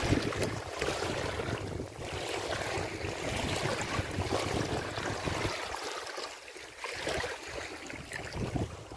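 Strong wind buffeting the microphone in gusts, a rough rumbling noise that eases briefly about six seconds in.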